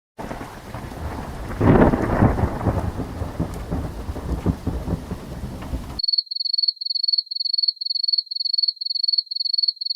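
Thunderstorm sound effect: steady rain with a loud roll of thunder about two seconds in. It cuts off abruptly about six seconds in and is followed by rapid high-pitched electronic beeping, about three beeps a second, like a digital alarm.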